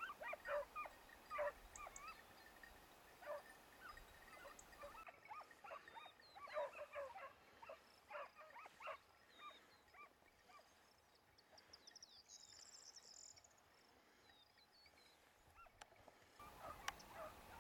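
Distant hunting hounds yelping and baying in short bursts from the scrub: the pack giving tongue on a hare's trail. The calls come in clusters, thin out in the middle and pick up again near the end.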